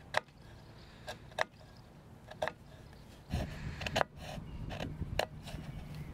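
Hand awl being twisted into a stained wooden box lid to bore a pilot hole: a string of short, sharp wooden clicks and creaks, about eight in six seconds, with a duller knock and rustle of handling a little past halfway.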